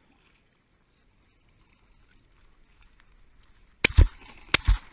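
Shotgun fired from a kayak: several loud blasts in quick succession, starting a little under four seconds in, over faint water and wind noise.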